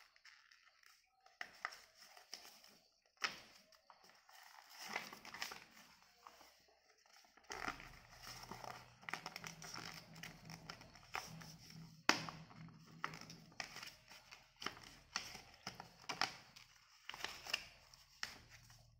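A sheet of paper being folded and creased by hand, giving irregular crinkles and sharp crackles as the folds are pressed down.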